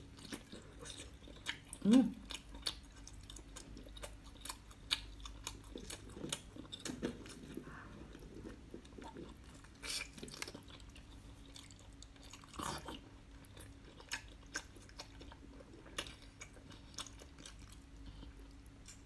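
Close-up chewing and biting of whole small octopuses coated in chili flakes: a steady scatter of short, sharp wet clicks from the mouth. A brief low vocal sound about two seconds in is the loudest moment.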